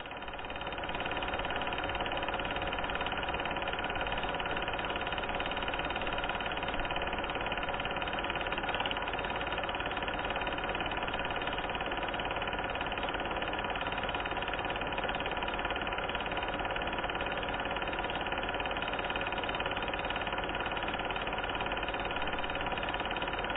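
Steady, unchanging mechanical hum, like a small motor running, that rises to full level over the first second and then holds.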